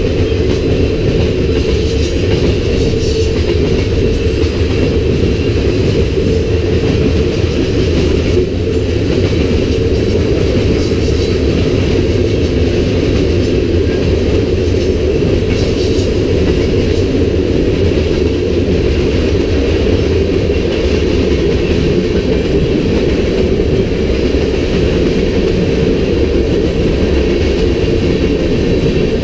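Freight cars of a CN manifest train rolling past: a loud, steady rumble of steel wheels on rail that goes on without a break.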